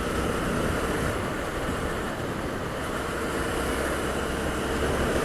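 Honda Twister's single-cylinder engine running at a steady speed under a steady rush of riding noise.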